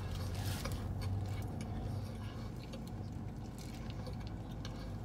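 Quiet eating sounds: a sandwich being chewed and its paper wrapper rustling, with small clicks and crinkles, over a steady low hum in the car's cabin.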